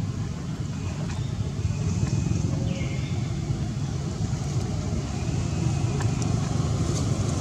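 Steady low outdoor rumble, with a short faint high call that falls in pitch and then holds, about three seconds in.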